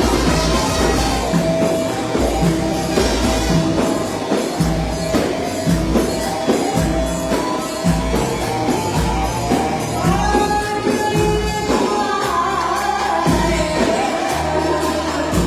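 Egyptian pop song with a steady drum and bass beat and tambourine, a singer's voice coming in about two-thirds of the way through.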